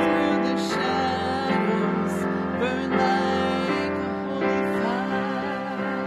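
A woman singing a worship song into a microphone, her voice wavering with vibrato over steady, sustained keyboard chords.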